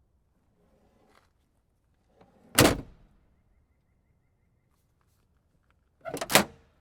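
Car trunk lid slammed shut with a heavy thud about two and a half seconds in, after faint handling noise. Near the end a quick rattle of clicks ends in a second sharp latch clunk.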